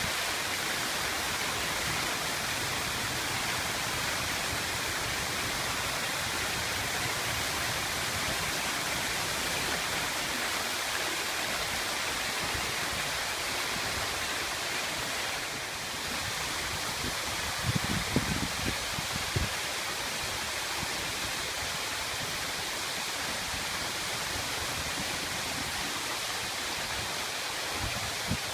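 Water falling in thin sheets over the edges of a fountain's stone walls into the pool below: a steady rushing splash. A few low bumps come about two-thirds of the way in.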